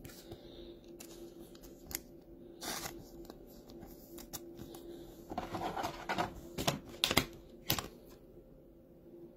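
Trading cards handled by hand: rustling and sliding of cards with a few sharp clicks and taps, busiest from about five to eight seconds in, over a faint steady hum.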